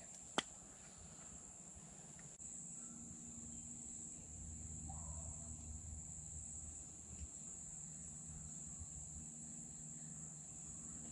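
Faint, steady, high-pitched insect trill in the background. A sharp click sounds just after the start, and a low hum comes in about two seconds in and continues.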